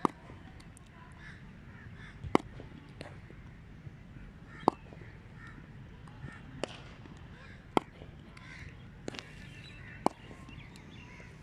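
Sharp cracks of cricket bats striking the ball during net practice, about seven of them at irregular intervals of one to two seconds.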